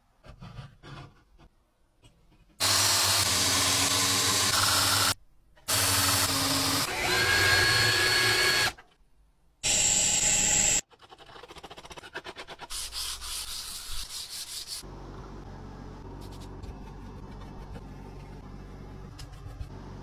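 A string of metalworking shop sounds: soft handling noises, then three loud bursts of power tools cutting metal, each starting and stopping suddenly, one of them a drill press drilling a brass knife liner. After these comes a steady low hum with scattered light clicks.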